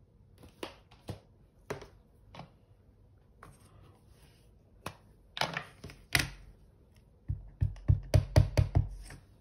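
Handling of card-making supplies on a desk: scattered light clicks and taps, then near the end a quick run of about nine thumps, five or six a second.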